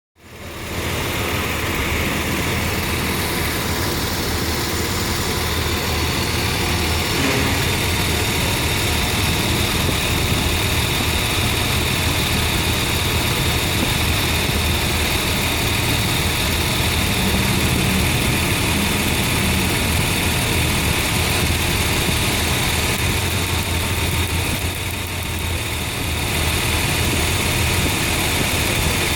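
Nissan engine idling steadily with a misfire and low power, while its high-tension spark plug wires are tested for a spark leak.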